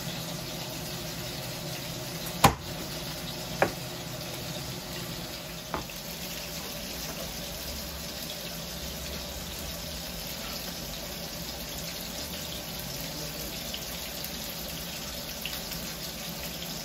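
Cleaver knocking on a plastic cutting board while raw chicken is cut up: three sharp knocks in the first six seconds, the first the loudest, over a steady hiss.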